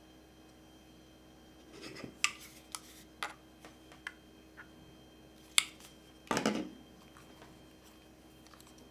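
Hands handling a caged mirrorless camera with a lens and a small blower: a run of sharp plastic and metal clicks and taps, then a brief rustle about six seconds in.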